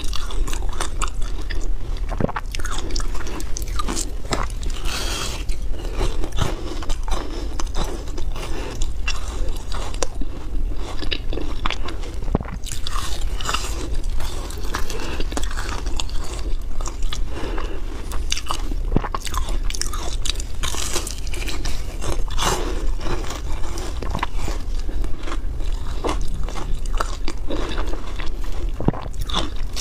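Close-miked crunching of hard frozen ice: teeth biting and chewing through blocks of flavoured ice in a continuous, dense run of sharp cracks and crunches.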